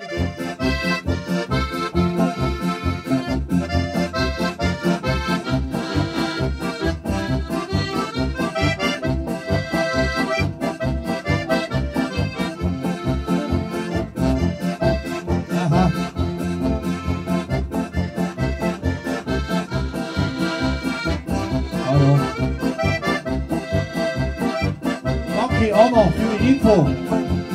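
Polka played live on a button accordion with electric guitar accompaniment, in a steady, even two-beat rhythm.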